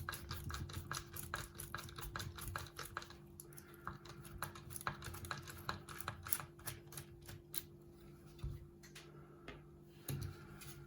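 Light, rapid clicking of a screwdriver backing out the small gold screw that holds the Echo's speaker in place. The clicks come thick and fast at first and thin out after about three seconds, over a faint steady hum.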